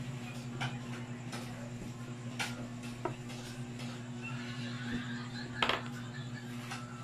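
Tailor's chalk and a wooden ruler being handled on a cutting table: a few scattered sharp clicks and taps, the loudest a quick double click a little before the end. A steady low hum runs underneath.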